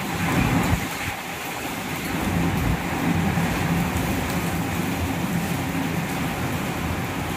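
Heavy monsoon-style downpour with strong gusty wind: a steady rush of rain, with wind rumbling on the microphone. It is a little louder for the first second.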